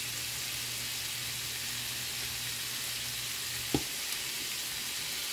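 Sliced smoked turkey sausage sizzling steadily in oil in a frying pan on low heat, with a single short click about three-quarters of the way through.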